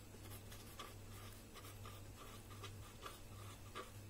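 Felt-tip marker writing on a white sheet: faint short scratchy strokes, about two or three a second, over a steady low hum.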